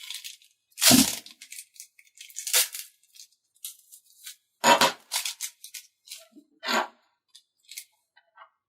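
Small airsoft pistol parts being handled on a bench: an inner barrel and hop-up rubber are being swapped. The sound is a series of sharp clicks and knocks, four of them louder, with lighter ticks and rustles between them.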